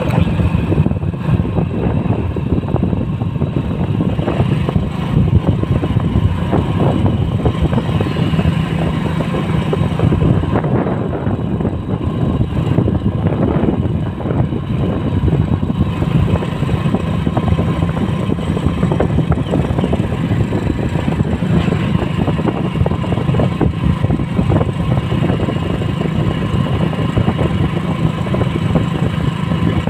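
Motorcycle engine running steadily while riding, with road and wind noise rushing over the microphone.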